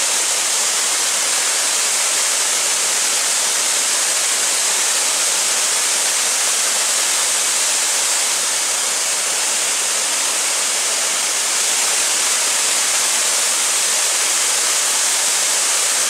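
Sridit Waterfall's several falls pouring over a rock ledge into a pool: a steady, bright, hissing rush of falling water.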